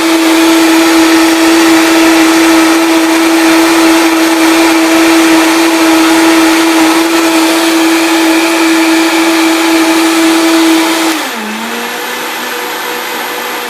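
Vitamix blender motor running with the power boost on: a loud, steady whine. About eleven seconds in, it drops to a lower pitch and runs on more quietly at a slower speed.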